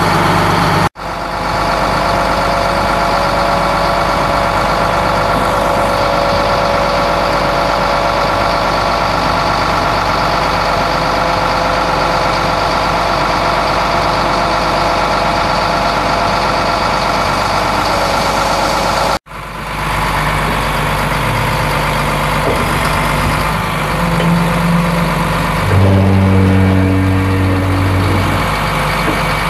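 Heavy truck engine idling steadily, cut off sharply twice for a moment, about a second in and again about two-thirds of the way through, with a deeper throb for a few seconds near the end.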